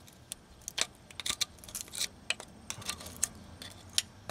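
Irregular small clicks, taps and light scrapes of a flathead screwdriver tip prying at the plastic retainer on a rusted transmission cooler line fitting.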